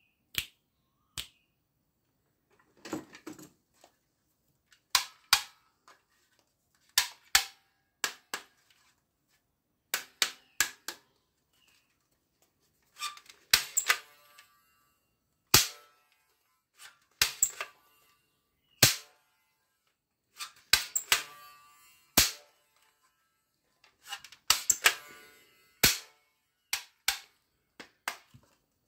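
Sharp plastic clicks, clacks and knocks from handling and working an orange plastic toy dart gun, coming singly at irregular intervals with a few short rattling clusters.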